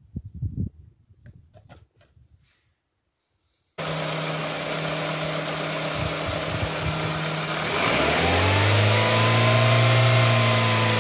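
A few faint clicks, then a car engine running that cuts in suddenly about four seconds in. Near the end it is revved up smoothly and held at a steady higher speed, with the revs raised for an alternator charging test.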